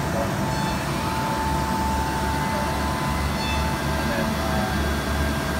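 WIDIA VSM890 shoulder milling cutter milling aluminium plate on a CNC machining centre under flood coolant: steady cutting and spindle noise with a constant high tone over a low pulsing hum.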